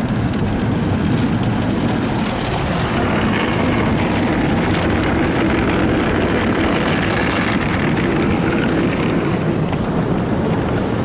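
NuStar Soft Touch Plus automatic car wash working over the truck, heard from inside the cab: a loud, steady rush and rumble of the wash's brushes and spray on the bodywork.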